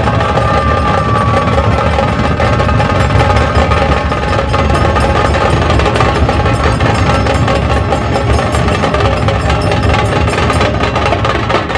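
Dhol-tasha drum ensemble playing a loud, dense, fast beat, with big barrel dhol drums and stick-struck tasha drums sounding together without a break.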